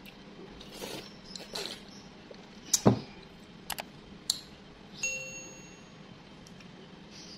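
Subscribe-button animation sound effects: a couple of swishes, a thump, two sharp mouse clicks, then a notification bell ding about five seconds in that rings on briefly.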